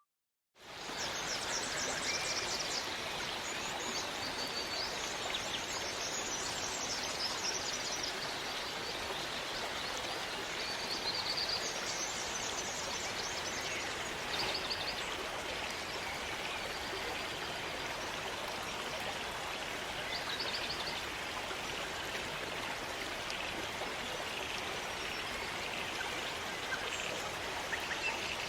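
Steady rush of running water from a rainforest stream near Liffey Falls, fading in over the first second, with short high chirping calls scattered over it.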